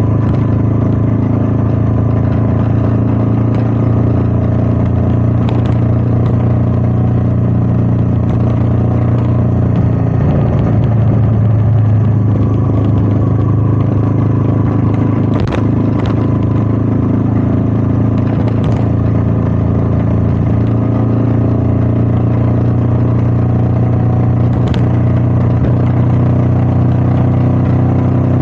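Royal Enfield Meteor 350's single-cylinder engine running steadily under way, heard from the rider's position. Its note shifts briefly about ten seconds in, and a few short clicks come through, the clearest about fifteen seconds in.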